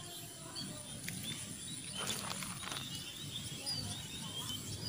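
Outdoor rural ambience with faint scattered bird chirps over a steady background hiss, and a few faint clicks about two seconds in.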